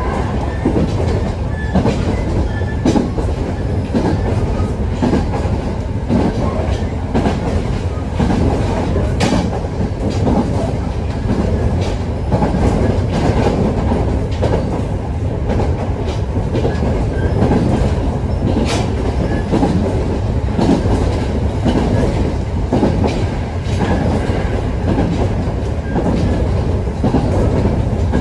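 Electric train on the JR Narita Line running along the track, heard from inside the carriage: a steady rumble of wheels on rail with irregular clickety-clack over the rail joints, and two sharp ticks in the middle.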